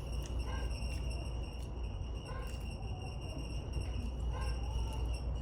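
Steady low hum with a thin, steady high-pitched whine, and faint voices in the background.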